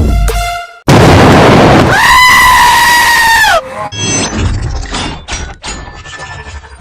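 A music beat cuts off, then a loud blast of distorted noise turns into a long, high, steady scream-like cry that drops in pitch as it stops, about three and a half seconds in. Fainter scraping and clicking follow.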